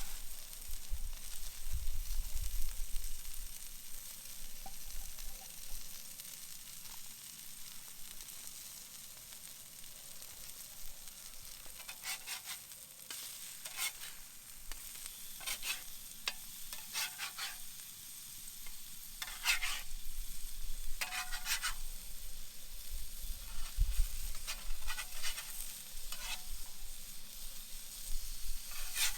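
Chicken frying in olive oil on a large Muurikka steel pan over a campfire, with a steady sizzle. In the middle stretch a utensil scrapes across the pan in a run of short strokes as the meat is stirred.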